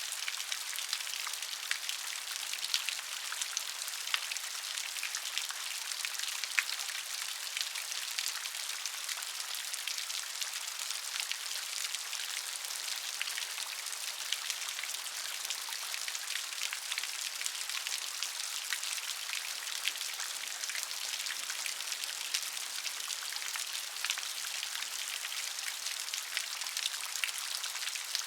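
Steady rain, a continuous hiss with many separate drops ticking against a surface.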